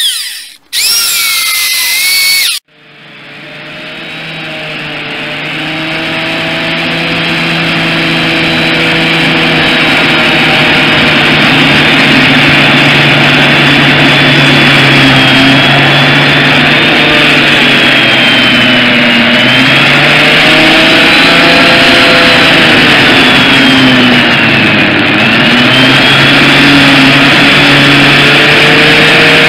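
Husqvarna 316E corded electric chainsaw running and cutting through logs. The sound breaks off briefly twice near the start, then builds to a steady motor whine whose pitch sags twice under load in the later part and recovers.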